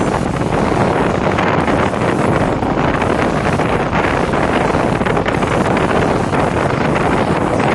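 Loud, steady rushing of a large waterfall, the Kopili River pouring over rocks, unbroken throughout.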